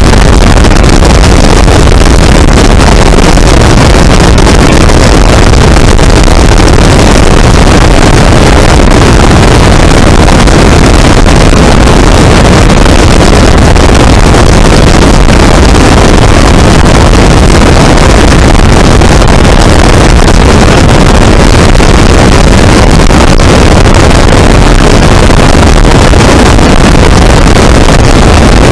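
Light biplane's engine and propeller running steadily in cruise flight, with wind rushing over a wing-mounted microphone. The sound is loud and unchanging, with heavy low rumble.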